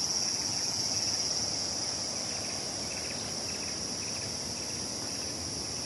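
Insects keep up a steady, high-pitched drone over a constant rushing hiss of a distant waterfall.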